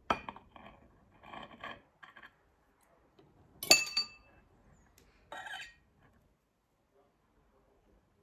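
Metal cake knife and fork clinking and scraping against a slate serving board and porcelain while a cream cake is cut and a slice lifted. The loudest is a sharp, ringing clink a little over three and a half seconds in; softer scrapes come before it and once more around five and a half seconds in.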